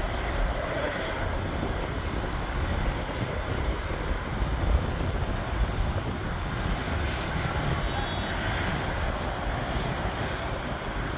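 Jet aircraft taking off: a steady rushing engine noise with a heavy low rumble that holds at a fairly even level.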